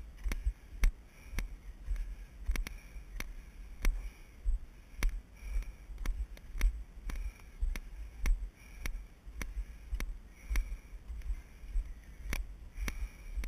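Footsteps of a person hiking briskly up a dirt trail, about two steps a second. Each step jolts the worn GoPro, so it gives a sharp click and a low thump in its housing.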